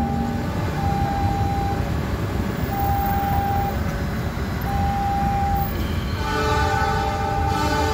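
Level-crossing warning signal sounding a slow two-tone alarm, one tone held about a second at a time, over road traffic; about six seconds in an approaching train's horn joins with a long blast of several tones together.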